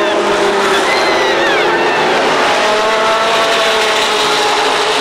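Several Super Late Model stock cars running at racing speed, their V8 engines loud and steady, with engine notes falling in pitch as cars go by. One car passes close near the end.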